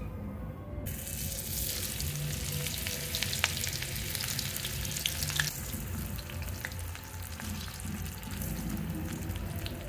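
Banana-flower pakora batter frying in hot oil in a kadai, with a loud sizzle that starts suddenly about a second in as the batter goes into the oil. Scattered sharp pops and spits run through it.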